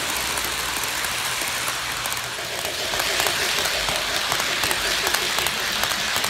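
Lionel Polar Express O-gauge passenger cars rolling on FasTrack toy train track: a steady rattle full of quick small clicks from the wheels on the rails and track joints, a little louder about halfway through.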